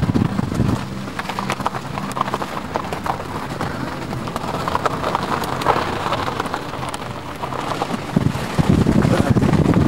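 Car driving slowly along a rough dirt track: tyres crunching over gravel and ruts with many small knocks and rattles, and the engine running underneath. The rumble gets heavier near the end.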